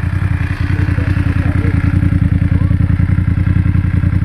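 BMW motorcycle engine running steadily at a low, even speed, its firing pulses regular throughout and getting a little louder after about a second and a half.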